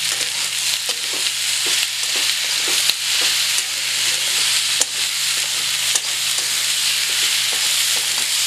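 Chopped okra and onion frying in oil, sizzling steadily, while a metal spatula stirs them, scraping and knocking against the pan every half second or so.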